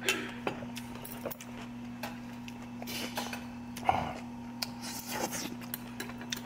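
Spoon and chopsticks clicking and clinking against bowls and dishes while someone eats, with a sharper knock about four seconds in, over a steady low hum.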